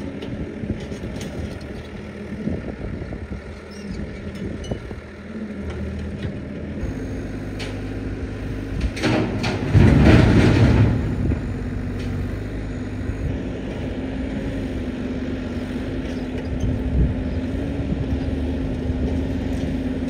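Engine of heavy earth-moving equipment running steadily, with a louder, rougher burst of noise lasting about two seconds near the middle.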